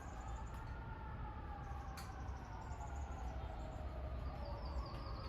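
Faint siren wailing, its pitch slowly rising and falling, over a steady low rumble. A single sharp click sounds about two seconds in.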